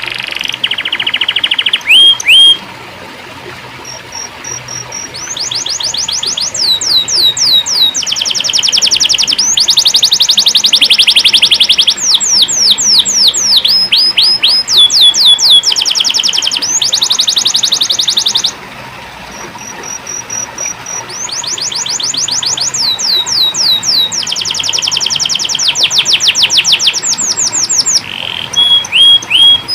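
Domestic canary singing a long, loud song of fast trills: runs of rapid, repeated downward-sweeping whistled notes. The song drops to softer phrases for a few seconds twice.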